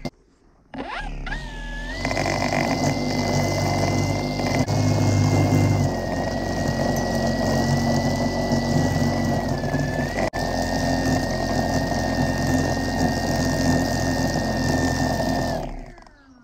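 Husqvarna 536LiLX battery string trimmer spinning up about a second in, then running steadily with a high whine as it cuts grass along the lawn edge, and spinning down near the end.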